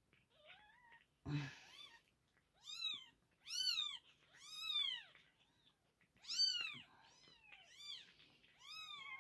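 Newborn kittens mewing: about ten short, high-pitched cries, each rising and then falling in pitch. There is a short thump about a second in.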